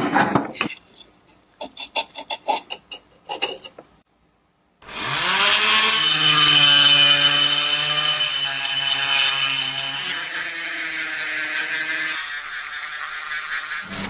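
A few short scraping and tapping noises, then a power tool's motor spins up with a rising whine about five seconds in and runs steadily, its pitch shifting a little near the end.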